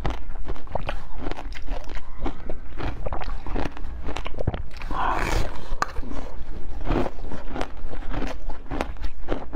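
Close-miked biting and crunching of a frozen slab studded with pomegranate seeds, with a dense run of sharp crackly clicks as it is chewed. A louder crunching bite comes about five seconds in.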